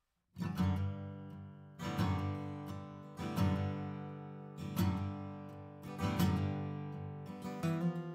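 Acoustic guitar music: strummed chords, one about every second and a half, starting a moment in after near silence.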